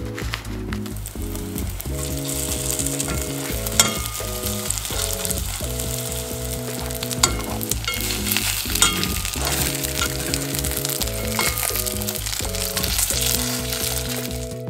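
Breaded shrimp cutlets sizzling steadily as they fry in oil in a pan, with a few sharp clicks of metal tongs against the pan, over background music.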